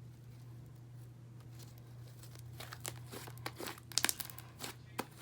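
Freshly made fluffy slime being stretched and squished by hand. Short crackles and pops start about halfway through, over a steady low hum.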